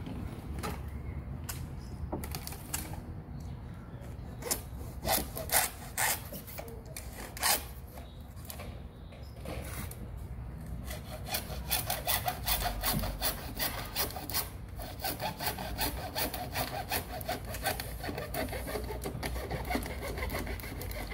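Hacksaw cutting a thin PVC panel. A few separate knocks and taps come first, then from about halfway through a fast, steady run of back-and-forth sawing strokes.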